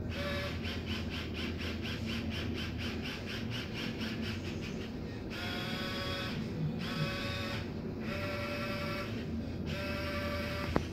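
Robosnail robotic aquarium glass cleaner driving across the glass. Its small motor whirs in quick pulses about four times a second, then whines in longer runs of about a second each with short pauses between them. There is a single click near the end.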